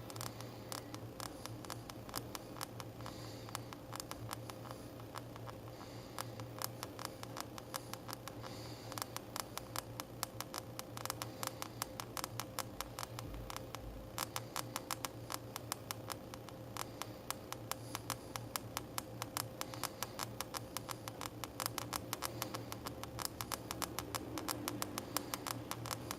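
Small, sharp clicks and crackles from the left and right sides of an HTC Magic phone, irregular and sparse at first, then coming much faster from about a third of the way in. This is the abnormal noise the owner reports from the phone's sides, a fault in the handset.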